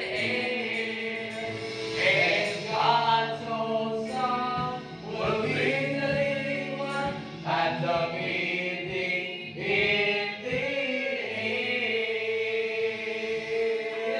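Gospel worship song sung by voices in a church hall over a live band, with drum hits and keyboard beneath the singing.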